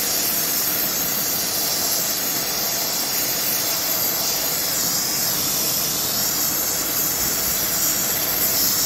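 Gas torch flame hissing steadily as it heats a dent in a pressurised two-stroke expansion chamber, so that the pressure inside pushes the dent out.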